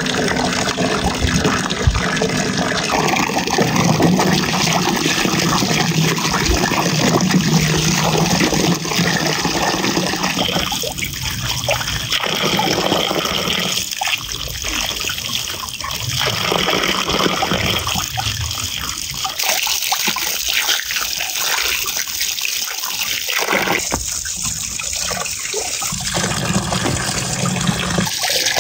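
Running water pouring and splashing over cucumbers in a metal basin as they are washed and stirred by hand. The splashing changes character a few times.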